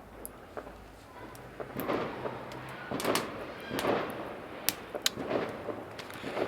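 Irregular firework bangs and sharp cracks, about a dozen spread unevenly. Several of them are duller and echo briefly.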